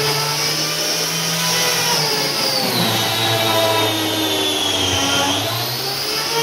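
Eibenstock EOF 100 paint-removal tool running steadily with a whine as it strips paint from pine paneling. Its pitch sinks from about two and a half seconds in, as the motor takes load in the cut, and climbs back near the end.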